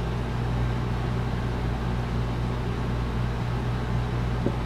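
A steady low hum with an even hiss over it, unchanging throughout, and one small click about four and a half seconds in.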